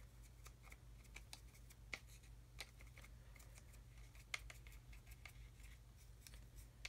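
Faint scratching and ticking of a paintbrush working black weathering pigment onto a small scale-model exhaust part, with a handful of sharper clicks among the soft strokes, over a low steady hum.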